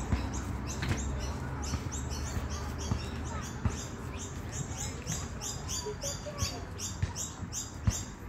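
Rapid, evenly repeated high chirping, about three chirps a second, over a low rumble. A few sharp knocks come through, the loudest near the end.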